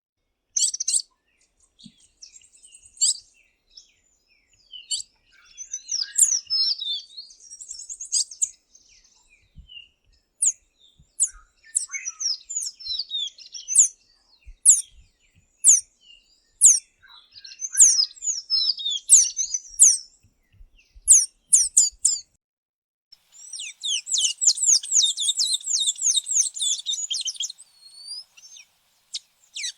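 Tanagers calling: a series of short, high chirps and call notes, with a fast, dense run of high notes toward the end.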